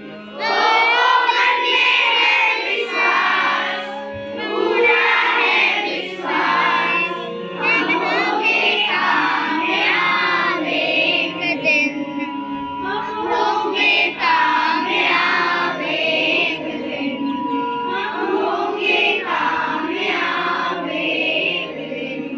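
Children's voices singing a song together over instrumental accompaniment, in phrases a few seconds long with short breaths between.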